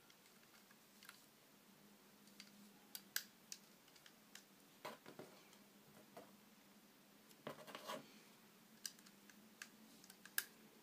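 Faint handling sounds of a plastic rubber-band loom: scattered small clicks and taps as rubber bands are stretched and snapped onto its plastic pegs, with a few sharper clicks about three seconds in and near the end.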